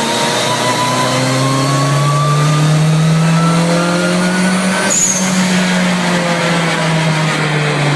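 The Golf Mk2 race car's turbocharged 16-valve engine pulling under a long, steady acceleration, its note climbing for about five seconds. It then breaks off suddenly as the driver lifts or shifts, and the revs slowly fall away.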